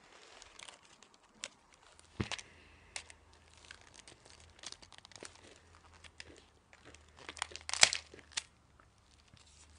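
Candy packaging being handled and torn open: scattered crinkles, clicks and short tearing sounds, with the loudest burst of rustling near the end.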